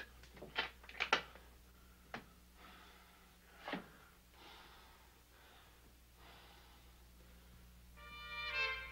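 A few short, breathy gasps and huffs from a person, clustered in the first couple of seconds, with one more about four seconds in. Brass music comes in near the end.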